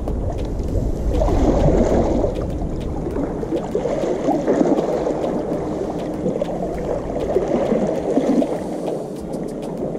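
Small sea waves washing and sloshing against shore rocks, swelling every couple of seconds. A low wind rumble on the microphone fades out about halfway through.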